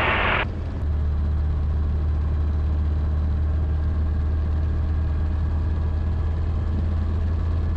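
Rotax 912ULS flat-four engine of a Zenith STOL CH 701 light aircraft running at low power as the plane taxis, a steady low drone with the propeller turning.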